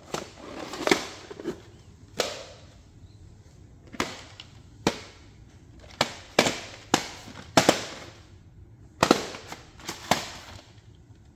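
Short, sharp clacks and knocks of VHS tapes and their cases being handled and set down, about a dozen at irregular intervals.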